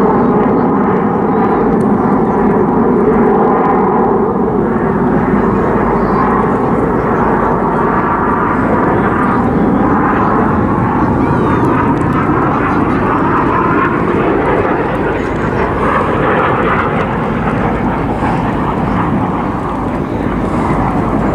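Red Arrows BAE Hawk T1 jets flying past, their Adour turbofan engines making a loud, continuous jet roar. The roar holds for the whole stretch, with tones that sweep up and down in pitch as the aircraft pass.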